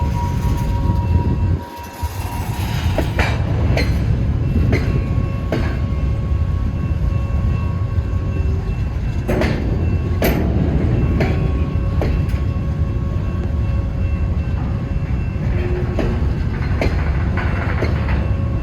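Norfolk Southern freight train cars rolling past with a steady low rumble. Irregular clicks come from wheels over rail joints, with faint steady wheel squeal.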